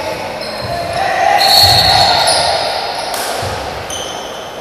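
A basketball bouncing on a hardwood court, with sneakers squeaking on the floor and voices echoing in the gym. The voices are loudest around the middle.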